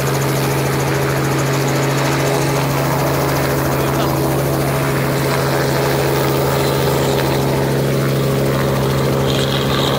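Small two-bladed helicopter running on the ground, its engine giving a steady, even-pitched hum that does not change.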